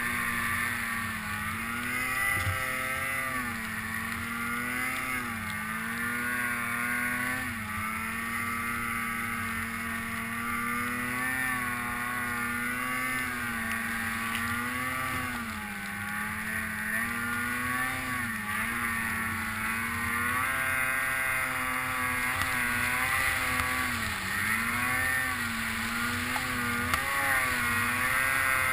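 Snowmobile engine running hard through deep powder, its pitch rising and falling every second or two as the throttle is worked, heard from the rider's helmet.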